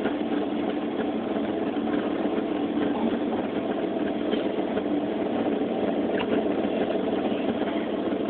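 Steady mechanical running hum, strongest in the low-mid range, with faint scattered ticks.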